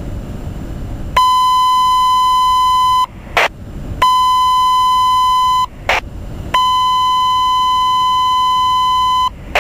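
Fire radio alert tone heard through a scanner: three long, steady, high beeps of about two seconds each, each cut off by a short burst of squelch static. They are the radio alert that comes just before the dispatcher orders all firefighters to evacuate the burning structure.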